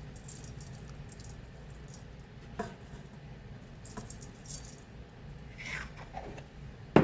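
Seasoning shaken from a spice shaker jar onto vegetables: a few short bursts of rattling, then a sharp knock at the very end as a jar is set down.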